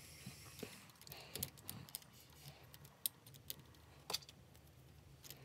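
Faint, scattered light clicks and taps of clear plastic 3D crystal puzzle pieces being handled.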